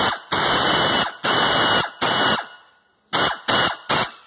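A power wrench run in stop-start bursts, driving in the engine-to-transmission bellhousing bolts without fully tightening them. There are three longer bursts of loud hissing whirr, then three quick short blips near the end.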